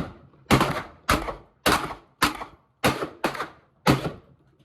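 A gun fired shot after shot at a steady pace, about two shots a second, seven or eight in a row, each with a short echoing tail.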